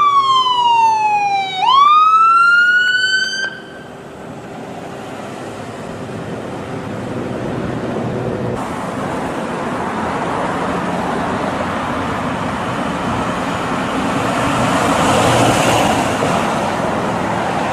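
American ambulance siren in wail mode, sliding slowly down in pitch and then back up before cutting off about three and a half seconds in. Road traffic noise follows, growing louder and easing off again near the end.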